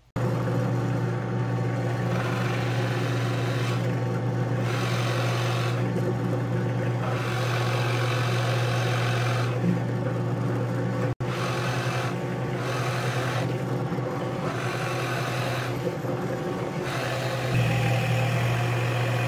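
Benchtop drill press motor running steadily while a 1-inch Forstner bit bores into a block of wood; the cutting noise swells and fades several times as the bit is fed in and eased back.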